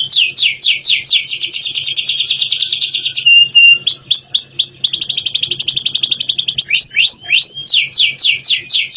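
Domestic canary in full song: fast rolling trills of rapidly repeated notes and falling sweeps, broken about three seconds in by a short level whistle, with quick rising sweeps near four and seven seconds.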